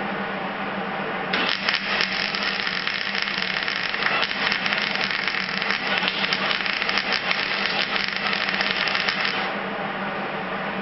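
MIG welding arc crackling and sizzling steadily, starting about a second in and stopping about a second and a half before the end, over a steady low hum.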